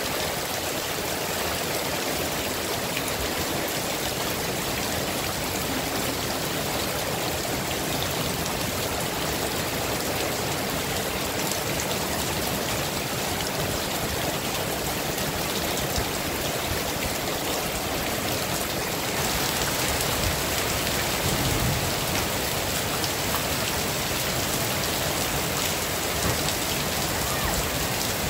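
Heavy rain falling steadily, a dense even hiss of countless drops with no let-up. It gets slightly louder about two-thirds of the way through.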